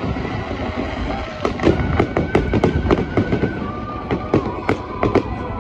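Fireworks display: a rapid, irregular string of sharp bangs and crackles from bursting shells, starting about a second and a half in and running on densely.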